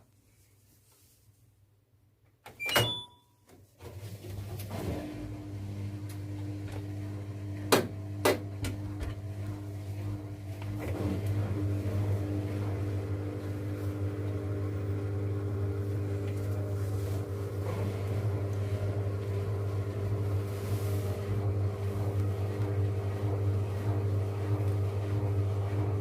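Washing machine starting a spin. After a short sharp sound, a steady motor and drum hum sets in, with two sharp clicks, and grows louder about ten seconds in as the drum picks up speed.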